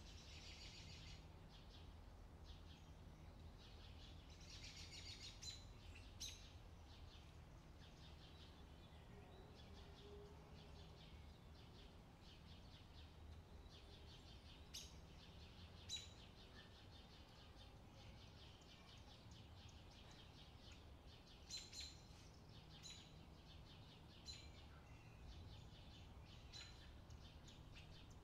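Near silence: a faint low hum with faint high chirping now and then and a few light ticks.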